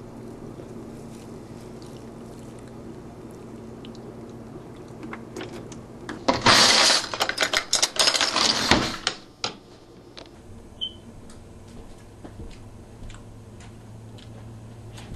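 A faint steady low hum. Then, a little after the midpoint, a kitchen cutlery drawer is opened and the metal spoons and forks rattle loudly in their plastic tray for about three seconds while one is picked out. A few light clicks and knocks follow.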